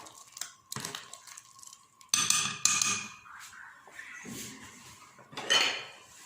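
A metal spoon stirring soup in a cooking pot, scraping and clinking against the pot in several separate strokes. The loudest strokes come about two seconds in and again near the end. The stirring keeps the freshly added vermicelli from clumping.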